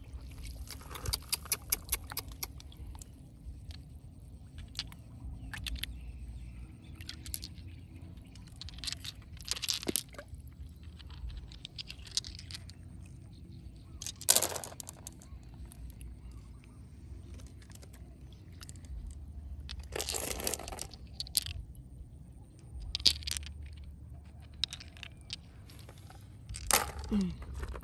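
Shallow river water splashing and sloshing in short, irregular bursts as a hand reaches into it and feet wade through it, over a low steady rumble.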